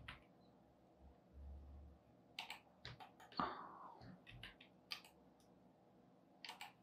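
Faint, scattered computer keyboard key presses and mouse clicks, mostly in the second half. A short soft noise about three and a half seconds in is the loudest moment.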